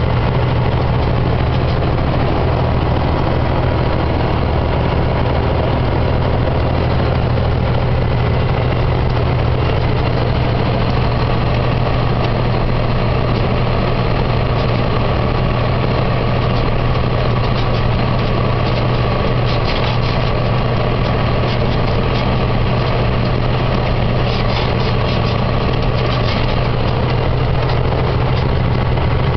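Heavy truck's engine droning steadily at highway speed, heard from inside the cab, with tyre and road noise.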